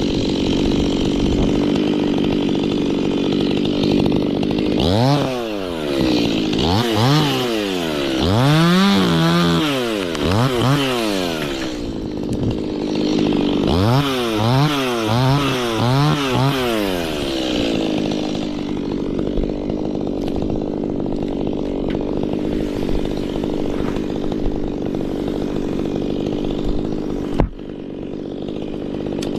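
Two-stroke Stihl chainsaw running steadily, revved up and down several times in quick succession in two spells. A single sharp knock comes near the end.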